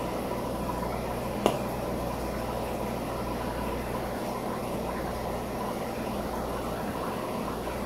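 Steady hum and hiss of running aquarium equipment, with one sharp click about one and a half seconds in.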